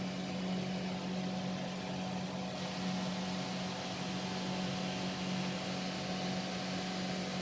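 A steady low hum with a light hiss, unchanging throughout.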